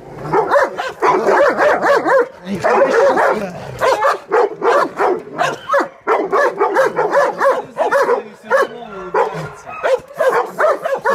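Dogs barking rapidly and without a break, many short barks a second, as a pit bull squares off against a German shepherd and another dog; the barking dips briefly about six seconds in.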